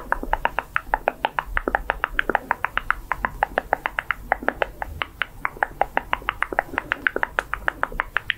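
Wet mouth sounds: rapid lip smacks and tongue clicks, about seven a second, made close to the microphone to mimic eating.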